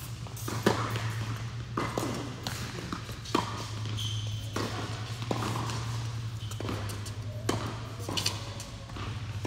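Tennis rally on an indoor hard court: sharp knocks of the ball off the rackets and off the court, a few seconds apart, the loudest about a second in as the serve is struck. A steady low hum from the hall runs underneath.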